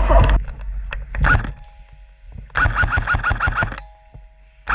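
Airsoft gun firing a rapid burst, about a second long, past the middle: a fast run of sharp clicks with a repeating chirping tone. A few scattered clicks come before it.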